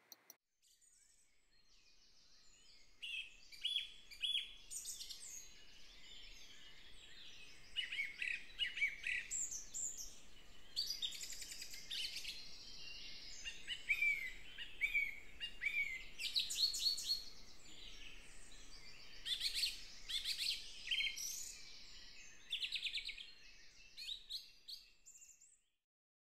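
Birdsong: a mix of quick chirps, rapid trills and down-slurred whistles, starting about two seconds in and ending shortly before the close.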